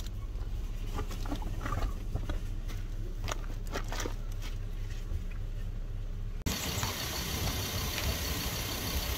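Plastic grocery bags rustling and knocking as they are lifted and set down inside a car, over a low steady hum. About two-thirds in, this cuts suddenly to a steady rush of outdoor noise.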